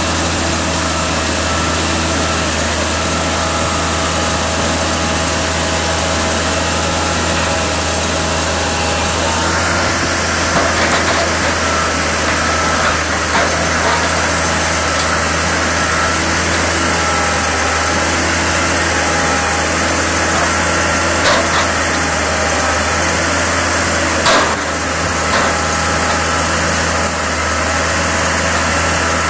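Diesel engine of a Manitowoc 14000 crawler crane running steadily, with a few short, sharp knocks in the second half.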